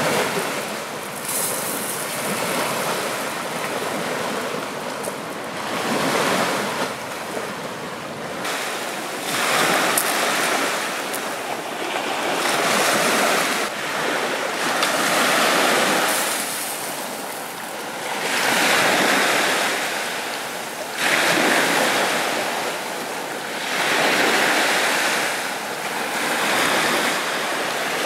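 Sea waves breaking and washing up a sandy shore, the surf swelling and fading every two to three seconds.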